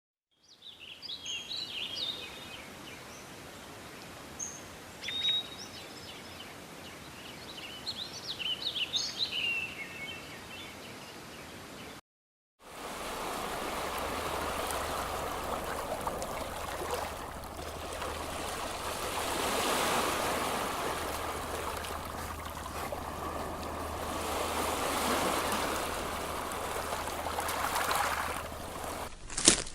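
Birds chirping and singing in short, high phrases for about twelve seconds. After a brief silent cut, a steady rush of flowing water follows, swelling and easing slowly, with a couple of sharp knocks near the end.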